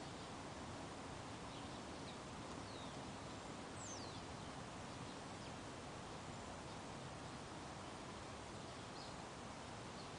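Steady outdoor background noise with a few faint, short birds' chirps, each a quick downward slide, scattered through.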